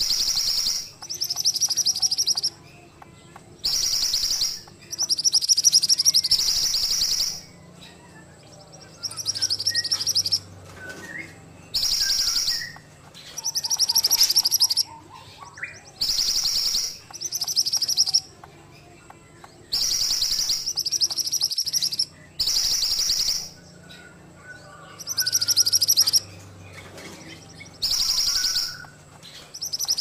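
Caged mantenan songbird singing high, fast phrases of one to two seconds each, over and over, with short pauses between them.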